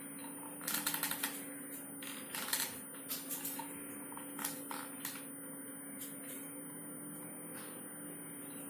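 Light clicking and crinkling of a plastic bottle being handled while a hot glue gun is worked around a straw at its neck. The clicks come in clusters about a second in and again around two and a half to three and a half seconds, then thin out, over a faint steady hum.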